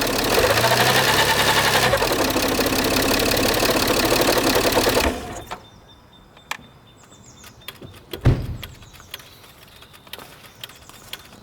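Peugeot 607 2.7 HDi V6 diesel running with a loud grinding noise, the fault under investigation. The noise stops abruptly about five seconds in, leaving scattered faint clicks and one low thump.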